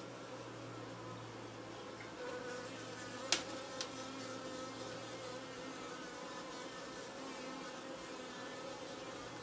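Honeybees buzzing over an open hive, a steady hum of several pitches. A sharp click comes about three seconds in and a smaller one half a second later.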